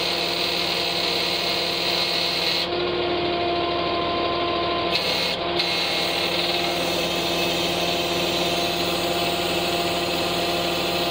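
Truck-mounted knuckle-boom crane's hydraulic system running on the truck's engine, a steady mechanical hum with a whine that shifts in pitch about three seconds in and again about halfway through as the boom is worked under a heavy load.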